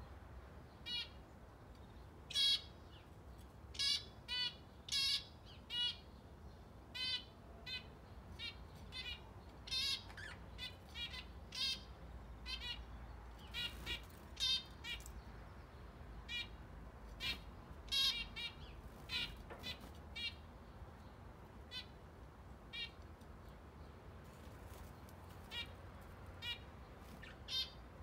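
Zebra finches and budgerigars in an aviary calling: many short, separate chirps at irregular intervals, a few a second, over a faint low hum.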